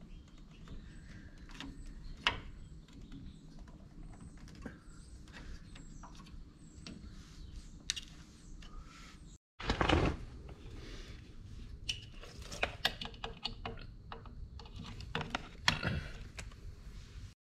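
Small clicks and rustling of hands pushing wire connectors onto a treadmill's circuit breaker and control board. About ten seconds in there is a brief loud rustle of handling, then more sharp clicks as an extension cord plug is pushed into an outdoor outlet.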